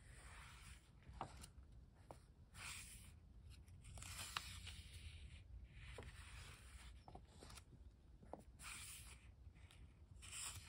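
Pages of a small Pentalic 4x6 paper sketchbook being turned and handled by hand. Faint paper rustles and swishes come several times, mixed with a few soft ticks.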